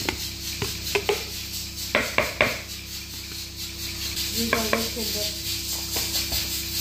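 A spoon tapping and knocking against a jar and a plastic bowl as spoonfuls of garlic paste are scooped out and dropped onto raw chicken pieces. There are about six sharp taps in the first two and a half seconds, and a few softer handling sounds near the middle, over a steady low hum.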